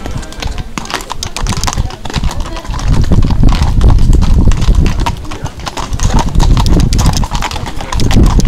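Horses' hooves clip-clopping on a paved road as several ridden horses walk past close by, getting louder about three seconds in as they come near.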